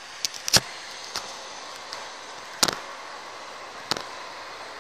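Steady city street background noise, broken by several sharp clicks or knocks, the loudest about two and a half seconds in.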